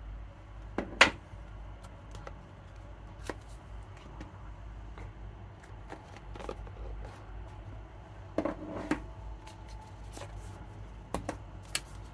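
Cardboard box, paper card and plastic case being handled while unpacking a speedcube: scattered light taps, clicks and rustles, the sharpest about a second in, with a small cluster about two-thirds through and a few more near the end.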